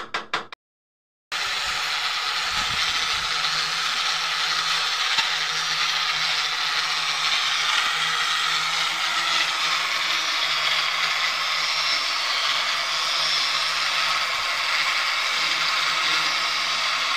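Corded electric drill boring into a brick window jamb, running steadily with a low motor hum. It starts in full a little over a second in, after a few brief stutters.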